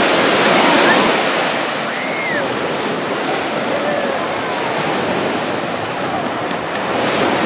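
Ocean surf breaking and washing up the sand in a steady rush, swelling near the start and again near the end, with faint distant voices of people in the water.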